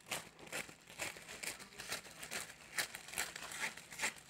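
Clear plastic shrink wrap film crinkling in short, irregular crackles as a piece of it is handled.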